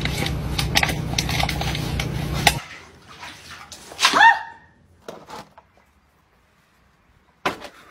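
Steady low rumble of a car's interior on the move, with a few clicks, cutting off after about two and a half seconds. About four seconds in comes a single short, falling dog yelp, then a few faint sounds.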